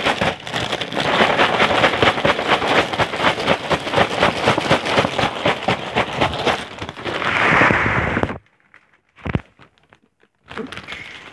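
Plastic cereal-bag liner crinkling and crackling loudly as it is wrestled and torn open, then a rushing spill of Frosted Flakes into a bowl about seven seconds in. A sudden lull follows, broken by a single knock.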